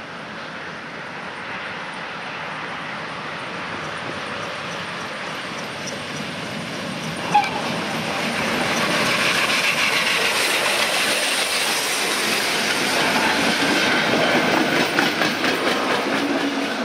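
Steam-hauled train approaching and passing close by, growing louder over the first half. There is one short sharp sound about seven seconds in, and the wheels clatter over the rails as the locomotive and carriages roll past.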